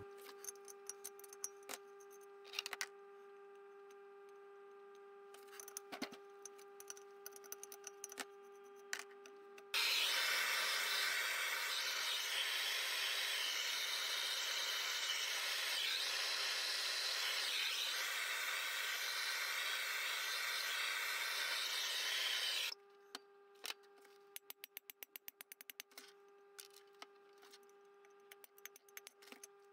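Handheld gas blowtorch burning with a steady hiss for about thirteen seconds as its flame heats a BSA B31 cylinder head. Before and after it, light clicks and taps of hand tools on the metal head, with a quick run of rapid clicks a few seconds after the torch goes off.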